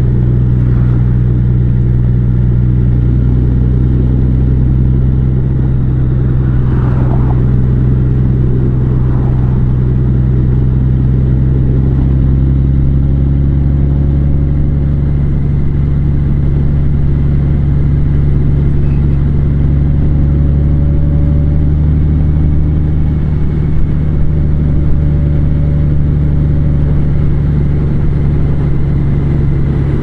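Large motorcycle's engine running at a steady pitch while riding along a road, with a dense rush of road and wind noise underneath.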